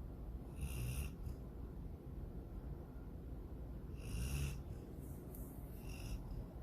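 Sleeping dog snoring: two louder snoring breaths about three and a half seconds apart, each with a thin high whistle, and a smaller one near the end.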